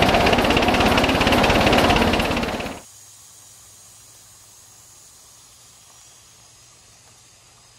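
Rapid, dense clatter of a 3.5-inch gauge live steam 4-6-0 locomotive running, heard from the riding car inside a wooden covered bridge, cutting off suddenly about three seconds in. Then a faint steady hiss with a low hum underneath.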